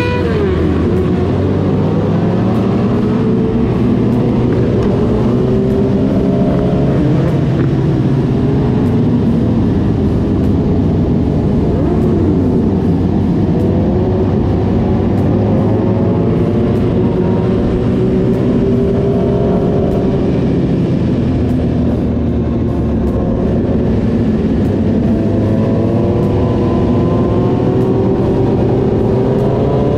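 Several sportbike engines running together, their pitches rising and falling as they accelerate and shift. One drops sharply about twelve seconds in, and several climb together near the end.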